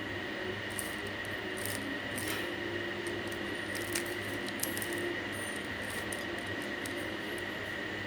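Plastic 3x3 Rubik's Cube layers being turned by hand: faint scattered clicks and rubbing over a steady background hiss with a thin high whine.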